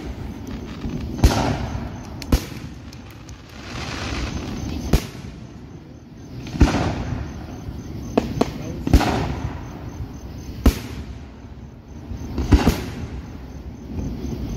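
Aerial fireworks shells bursting overhead: a string of about a dozen sharp bangs at irregular intervals of one to two seconds, some in quick pairs, several followed by a lingering echo.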